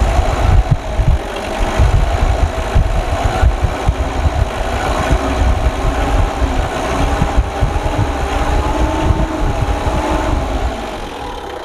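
Mitsubishi 4D56 four-cylinder diesel engine held at raised revs at the injection-pump lever, running smoothly at this speed; its rough shaking and misfire show only at low revs. The engine eases back slightly near the end.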